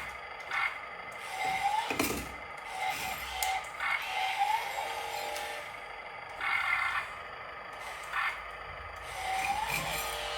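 Small electric motors of radio-controlled construction machines whining in short rising spurts as they are driven. There is a sharp knock about two seconds in.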